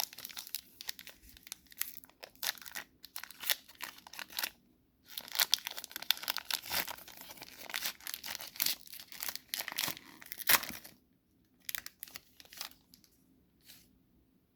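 Trading-card foil pack wrappers being torn open and crinkled in the hands, a dense crackling rustle that breaks off briefly about five seconds in and stops about eleven seconds in, followed by a few faint rustles.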